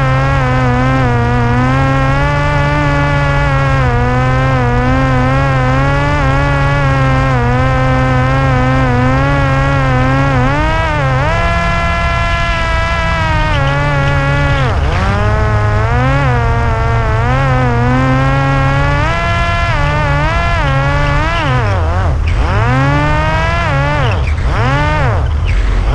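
Parrot Disco's electric motor and pusher propeller buzzing in flight, heard from on board. The pitch wavers with the throttle and drops sharply and climbs back several times near the end, with wind noise underneath.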